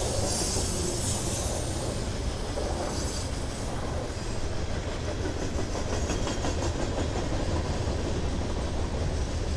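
Freight train cars rolling past close by: a steady rumble of steel wheels on rail, with high-pitched wheel squeal in the first second or so and again about three seconds in.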